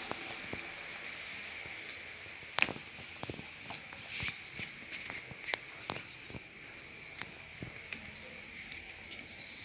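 Steady high insect chirring with scattered light clicks and taps.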